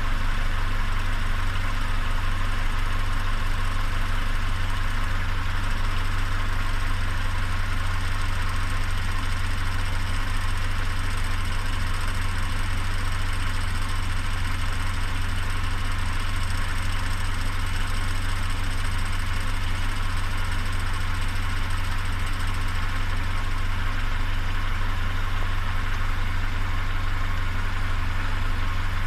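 Peugeot 407's EW10A 2.0-litre four-cylinder petrol engine idling steadily, with an unexplained noise that the owner calls strange.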